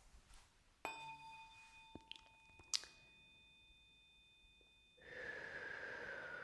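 A tuning fork (the "144" fork) is struck about a second in and rings with thin, high, steady overtones that fade over about four seconds, with a light click partway through. From about five seconds in, a louder, hazier ringing tone sounds and slowly falls in pitch.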